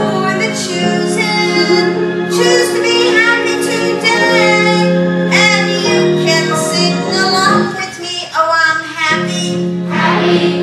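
Upbeat children's song: female and child voices singing over instrumental backing.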